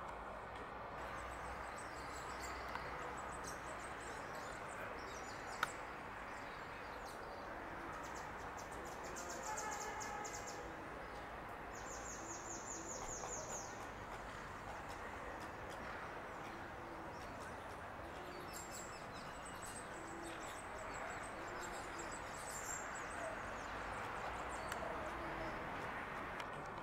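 Outdoor ambience: a steady hiss of background noise with birds chirping now and then, including a rapid high trill lasting about a second and a half near the middle. A single sharp click about five and a half seconds in.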